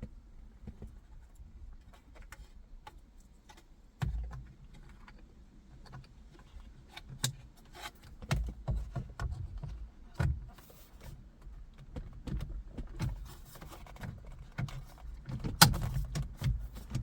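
Scattered clicks, knocks and light rattles of hands working at a car's steering wheel, refitting the airbag module into the new carbon-fibre wheel. The clicks grow busier after a few seconds, with one loud sharp click near the end.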